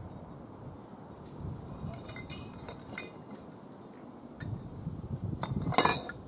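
Hanging copper tubes of a homemade wind charm clinking against one another as the charm is lowered and laid down on a workbench. It is a scatter of light clinks starting about two seconds in, with the loudest cluster near the end.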